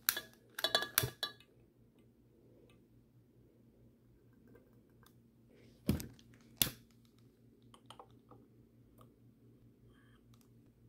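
Glass candle jars and their lids clinking and knocking on a granite countertop while a long utility lighter is used, with a cluster of clicks and clinks at the start and two sharp knocks about six seconds in. A faint steady hum sits underneath.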